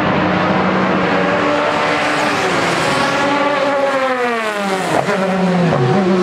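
Several sports saloon racing cars' engines running hard past the track-side position. About halfway through, one engine note falls steadily in pitch over a couple of seconds, and then engines run steadily again.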